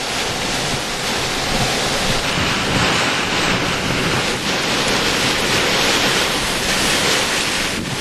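Hurricane-force wind and rain, a loud, steady rushing noise, with the wind buffeting the microphone.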